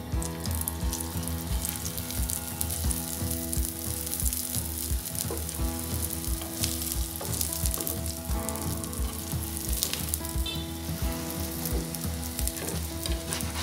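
Filled flatbread (paratha) frying in hot fat in a non-stick pan, sizzling steadily, over a steady low hum.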